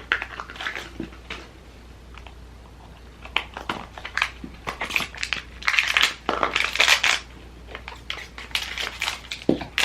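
Small cardboard advent-calendar box and its packaging being opened and handled by hand: a run of crinkles, rustles and small clicks, sparse at first and busier after about three seconds.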